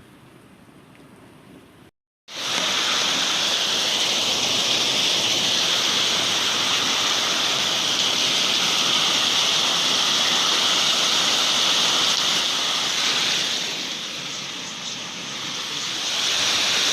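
Heavy thunderstorm rain pouring down: a loud, steady hiss that cuts in abruptly about two seconds in after a brief silence, easing slightly and swelling again near the end.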